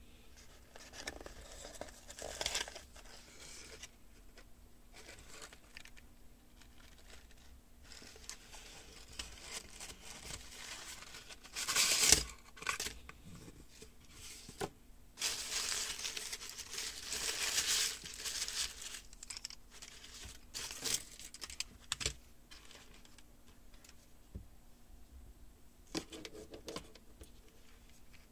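A thin plastic wrapper bag is crinkled and torn open to unwrap a small plastic toy, with cardboard packaging handled alongside. The rustling comes in irregular bursts: the loudest tearing is about twelve seconds in, a long stretch of crinkling follows, and a few sharp clicks come later.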